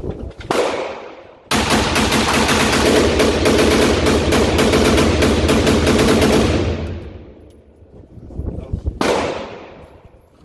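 Sig Sauer M400 AR-15 rifle firing: a single shot, then a fast unbroken string of shots for about five seconds, emptying a magazine. The shots ring with a long echo off the indoor range's concrete that fades over a second or two. One more single shot comes near the end.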